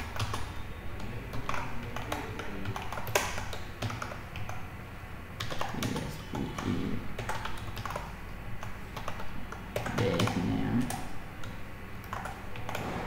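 Computer keyboard being typed on: irregular runs of key clicks as code is entered, over a steady low hum.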